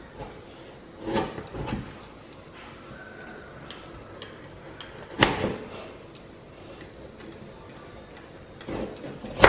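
Knife cutting through a firm, set chocolate-marshmallow biscuit cake and knocking on a wooden cutting board: a few short knocks about a second in, the loudest about five seconds in, and more near the end.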